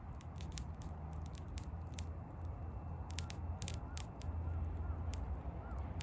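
Wood bonfire crackling, with scattered sharp pops and snaps over a steady low rumble.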